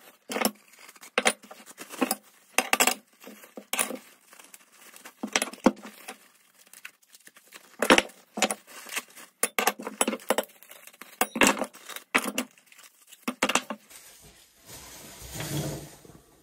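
Metal chainsaw-mill parts clinking and clattering as they are handled and set down on a wooden workbench, mixed with the crinkle of bubble wrap being pulled off. Near the end a longer rustle swells up and fades.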